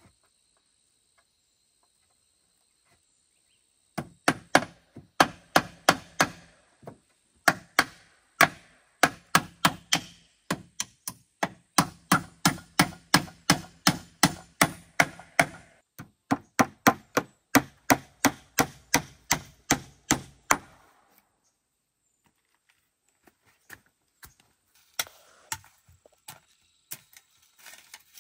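Hammer blows on wooden wall planks, likely nails being driven. A steady run of sharp strikes comes about three a second, then stops about three-quarters of the way through. After a pause, a few lighter knocks follow near the end.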